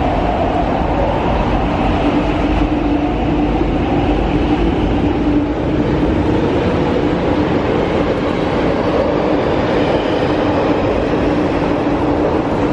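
MTR Tuen Ma Line train passing through the station at speed without stopping. Its wheels on the rails give a loud, continuous rumble, with a steady droning tone from the running gear.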